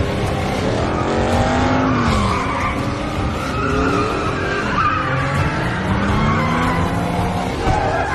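Muscle car engine revving hard as the car slides through a turn, its pitch climbing and dropping several times, with tyres squealing and skidding.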